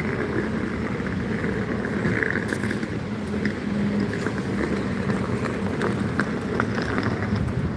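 Steady city street traffic noise with wind buffeting the microphone, a low engine hum running under it and scattered light ticks.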